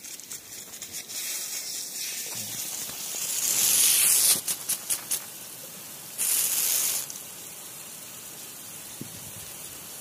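Rotating farm irrigation sprinkler spraying at close range. Its jet hisses and sweeps across the microphone twice, a loud rush of spray about three seconds in with a few spatters after it, and a shorter rush about six seconds in, with steady hissing between.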